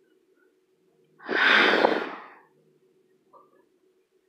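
A singer's loud breath into the microphone between sung lines, starting about a second in and lasting about a second.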